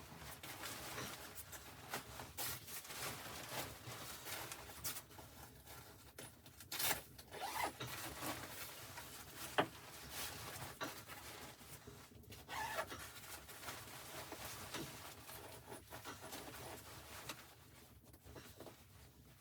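Rustling and handling noises, with scattered clicks and knocks; the sharpest click comes about ten seconds in, and the activity dies down near the end.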